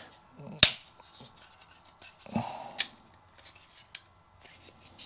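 Sharp clicks and snaps of a wooden beehive frame top bar being worked by hand to break off its serrated strip, with light handling noise between them. The loudest snap comes just over half a second in, with two lighter ones later.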